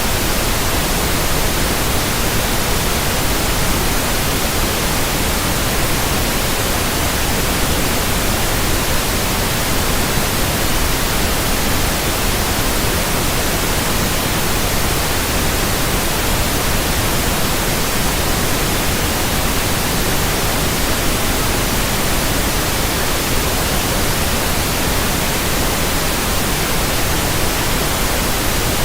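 Steady static hiss: a loud, even wash of noise across all pitches, with no change, breaks or tones.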